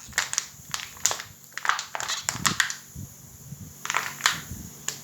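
Empty plastic vinegar bottle being crushed flat: a run of irregular crackling snaps as the plastic crumples and gives way, with a short pause partway through.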